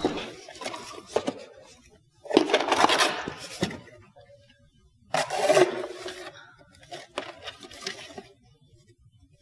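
Cardboard box being opened and rummaged, with a VHS cassette taken out and handled: two bursts of rustling and scraping, one about two seconds in and one about five seconds in, with a few light clicks near the start.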